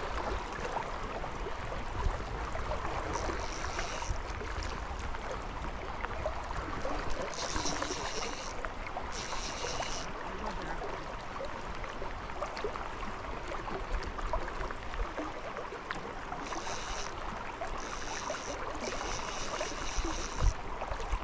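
Steady rush of river current and wind on the microphone, broken by a fishing reel whirring in short spells of about a second, seven or so times, as a hooked fish is played.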